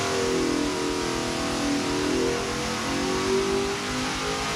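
451 cubic inch Dart-block Ford Windsor V8 running at high rpm, around 5,300 rpm, under load on an engine dynamometer. The engine note holds steady, wavering slightly in pitch.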